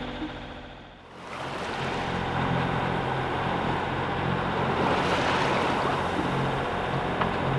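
Background music fading out in the first second, then a steady wash of sea water rushing past a moving sailboat's hull with wind on the microphone, over a low steady hum.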